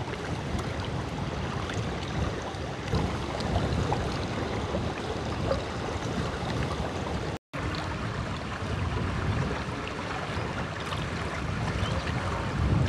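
Wind buffeting the microphone over choppy river water, a steady rushing noise with some lapping. It drops out for a moment about seven and a half seconds in.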